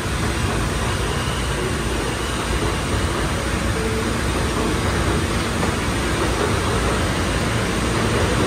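Steady, even hiss and rumble of a New York City Subway E train standing at the platform with its doors open.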